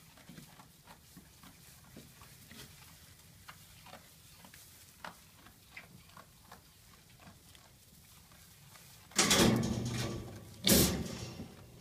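Faint rustling and small clicks as goats move in hay, then a goat bleats loudly twice near the end, each call raspy and lasting about a second.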